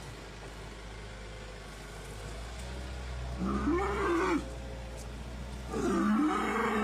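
Cow mooing twice: two drawn-out moos, each rising and then falling in pitch, the second one longer.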